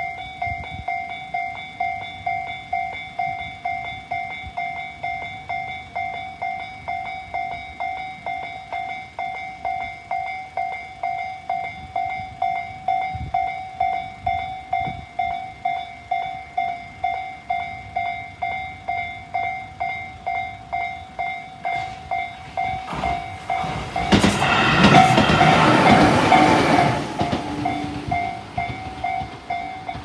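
Japanese level-crossing warning bell of the Tobu Tojo-line type, ringing in a steady electronic ding about twice a second. A train passes over the crossing loudly for about three seconds near the end, and the bell stops just before the end.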